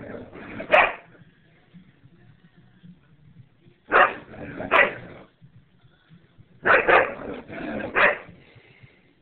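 Dog barking during play in short groups: one bark within the first second, two about four seconds in, and a quick run of three or four barks near the end.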